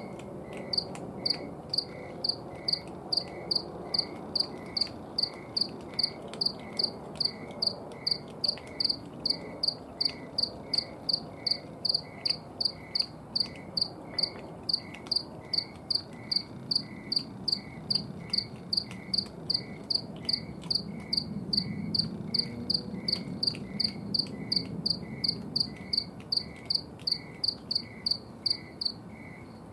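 Crickets chirping: one high, loud chirp repeated evenly about two and a half times a second, stopping shortly before the end, with a second, lower cricket chirping more slowly throughout.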